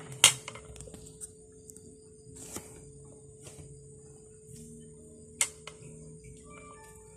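Someone eating crispy fried food by hand: a few sharp crunchy clicks, the loudest about a quarter second in, another near the middle and one about two seconds before the end. Behind them run a steady high whine of crickets and faint music.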